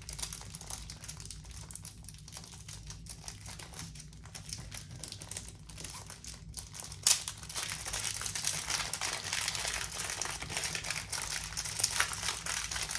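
Plastic packaging crinkling and rustling as it is handled and pulled open from around a small puzzle cube, softer at first, then louder from a sharp crackle about seven seconds in.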